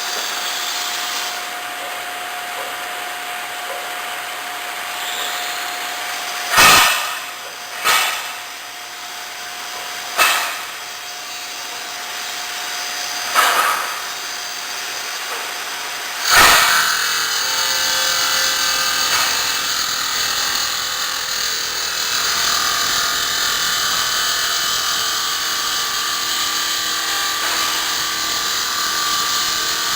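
Automatic granite-cutting saw running with a steady machine noise and a thin whine. Five short, loud bursts come at intervals. About halfway through it settles into a denser, slightly louder steady sound, as the saw cuts the stone.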